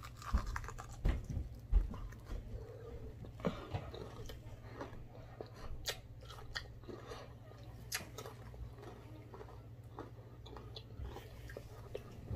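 Close-up chewing and biting of a crunchy fried chicken wing coated in crushed Flamin' Hot Cheetos, with scattered crunches that are loudest in the first two seconds. A low steady hum runs underneath.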